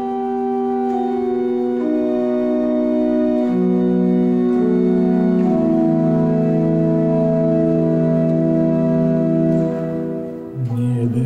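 Organ playing a Christmas carol in slow, held chords that change every second or two. Near the end the chord breaks off briefly and a new low note comes in.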